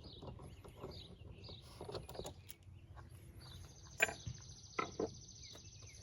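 Small clicks and taps of hand tools and metal lock hardware being handled while an RV compartment lock is taken off, with a sharper click about four seconds in.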